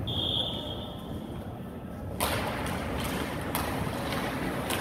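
A referee's whistle blown in one steady, high blast for about two seconds at an ice hockey game. About two seconds in, a broad hiss sets in with a few sharp knocks.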